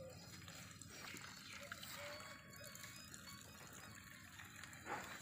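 Faint trickle of water at an irrigation pipe's joint, with a brief knock near the end.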